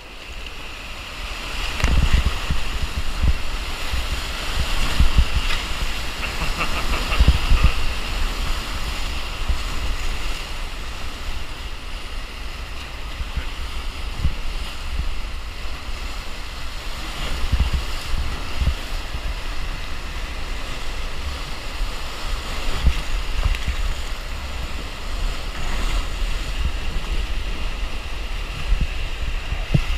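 Whitewater rapid rushing and splashing around a raft, with wind and spray buffeting the microphone in frequent low thumps.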